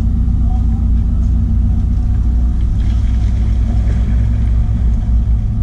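A shrimp trawler's diesel engine running steadily, a loud even low drone heard from inside the wheelhouse.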